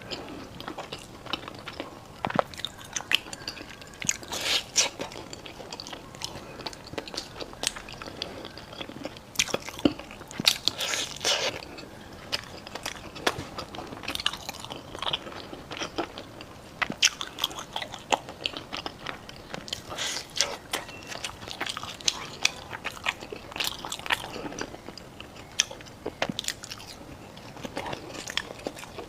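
Close-up crunchy bites and chewing of crisp food, with many sharp crackles at an irregular pace.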